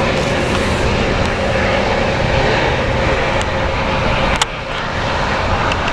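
Metrolink commuter train pulling away, a steady rumble of wheels on rail and diesel locomotive, with one sharp knock about four and a half seconds in.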